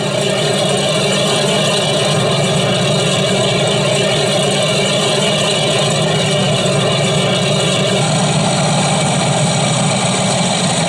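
Recorded radial aircraft engine running steadily, played loudly through an exhibit display's speakers; the sound shifts slightly about eight seconds in.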